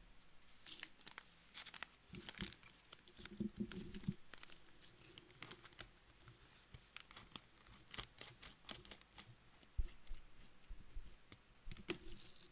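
A packaging bag crinkling as it is handled, then being cut open with scissors near the end, with sharp crackles and snips.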